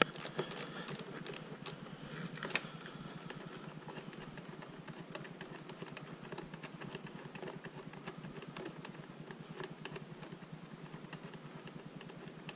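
Faint small metallic clicks and taps of an 8 mm wrench and the positive terminal bolt as a motorcycle battery terminal is loosened and the bolt turned out by hand, with one sharper click about two and a half seconds in.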